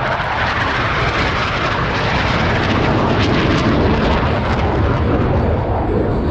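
Loud, steady jet engine noise from Blue Angels F/A-18 Super Hornets in flight.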